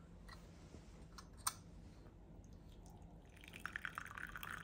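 Tea pouring from a stainless steel pot into a ceramic cup, a steady trickling splash that starts about three seconds in. Before it, a couple of faint clicks.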